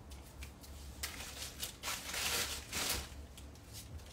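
Clothes and belongings being handled and rustled: a run of short scraping, crinkling noises, loudest about two to three seconds in, over a steady low hum.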